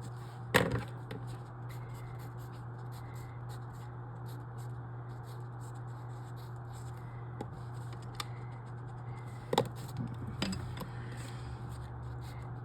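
Faint scratching of writing, with a few sharp taps about half a second in and again near the end, over a steady low hum.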